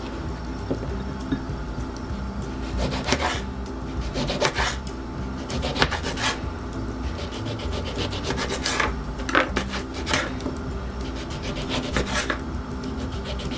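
Kitchen knife slicing through whole lemons on a plastic cutting board: short cutting strokes every second or two, the blade meeting the board at the end of each cut, over a steady low hum.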